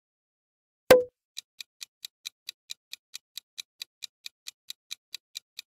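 A single short, loud hit sound effect about a second in, then a clock ticking sound effect for a quiz countdown timer, steady at about four to five ticks a second.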